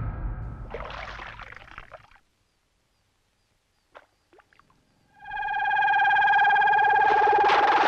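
A short hiss fades out, then near silence with a few faint clicks. About five seconds in, a loud, steady electronic tone with a fast siren-like wobble comes in and holds.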